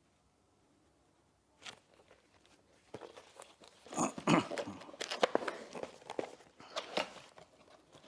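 Packaging being handled: a single click, then from about three seconds in a run of dense crinkling, crackling and scraping as wrapping and a cardboard box are worked open.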